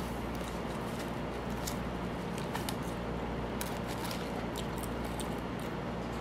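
A person chewing a fried chicken burger close to the microphone: scattered small, sharp mouth clicks and squishes over a steady low hum.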